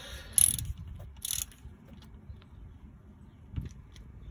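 Socket ratchet clicking in two short runs about a second apart as the water pump's nuts are run down by hand before torquing, followed by quieter handling of the tools and a dull knock near the end.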